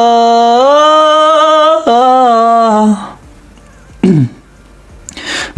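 A man singing one long held note of a Hindi song line, its pitch rising and then falling back, cutting off about three seconds in. A short falling vocal sound follows at about four seconds, then a brief breathy noise.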